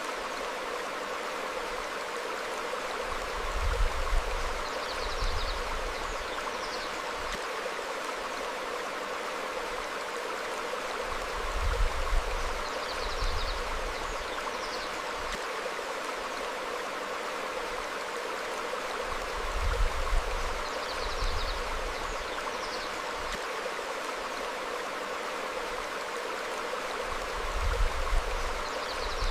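Forest stream flowing over rocks, a steady rushing of water. About every eight seconds there is a brief low rumble, the loudest thing heard, followed by a pair of faint, short, high bird chirps; the pattern repeats evenly, like a loop.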